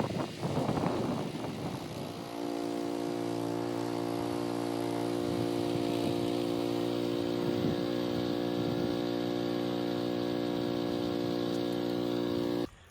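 Rototiller's small gasoline engine running at a steady speed, rougher and uneven for the first two seconds, then even, and cutting off abruptly near the end.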